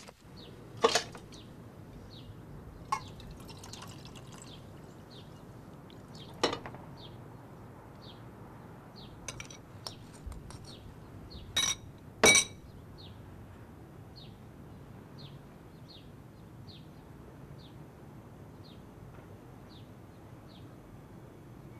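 Faint, steady dripping, about one drop every two-thirds of a second, with a few sharp clinks of a spoon against a metal bowl; the loudest pair of clinks comes about halfway through.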